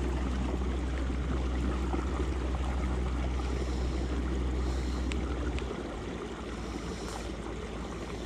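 Low steady motor hum as the kayak moves along, over the wash of water along the hull; the hum cuts off suddenly about six seconds in, leaving only the water sound.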